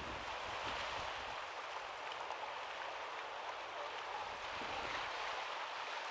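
Steady rushing of surf on a rocky lava shore.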